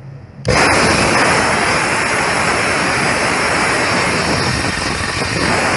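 APT 9.25-inch 2200 W circular saw running at full speed, a loud steady motor and blade whine that starts abruptly about half a second in.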